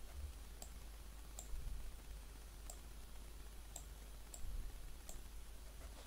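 Faint computer mouse clicks, about six of them spaced a second or so apart, over a low steady hum.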